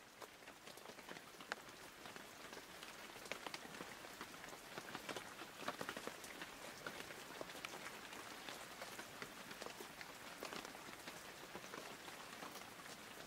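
Faint, steady crackling patter: many small scattered ticks over a soft hiss.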